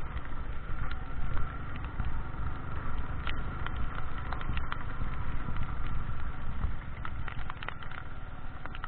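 Motorcycle riding on a wet road in rain: wind rumbling on the microphone over the running engine, with a faint steady whine. Scattered sharp ticks come from raindrops hitting the camera.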